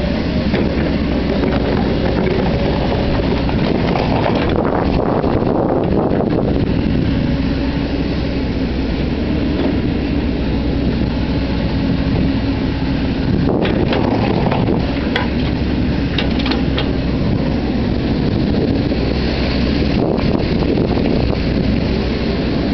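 Hyundai Robex 140-9 crawler excavator's diesel engine and hydraulics running under load as the boom and bucket work and the upper body swings, the sound shifting every few seconds with the moves. Wind buffets the microphone.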